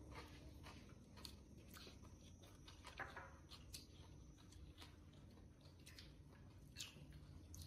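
Near silence: faint, scattered clicks of chopsticks against a porcelain rice bowl and soft chewing, over a low steady hum.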